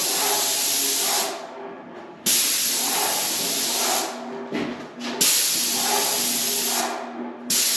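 Graco 695 airless paint sprayer's gun spraying paint in a hissing jet: four passes of about two seconds each, stopping briefly between them as the trigger is released.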